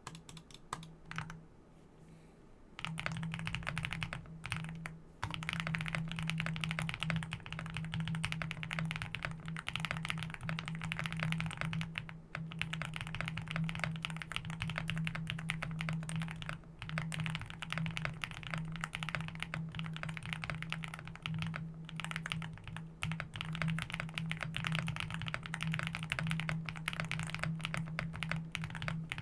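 Typing on an Akko SPR75 mechanical keyboard with Matcha Greens Pro switches, modded with tape, force-break and polyfill. A few single keystrokes come first, then fast continuous typing starts about three seconds in and runs on with a few short pauses.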